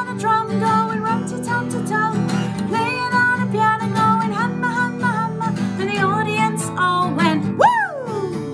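A woman singing a children's song while strumming an acoustic guitar. Near the end her voice gives one sliding whoop that shoots up and falls away.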